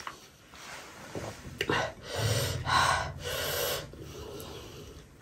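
A person breathing hard through the mouth: a run of about five quick hissing breaths in and out, the sucking of air that cools a mouth burning from spicy chili oil.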